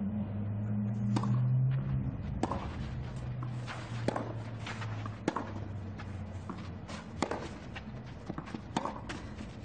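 Tennis serve and baseline rally on a clay court: a sharp racquet-on-ball pop about a second in, then further hits every second or two, with players' footsteps on the clay between shots. A low steady hum runs underneath.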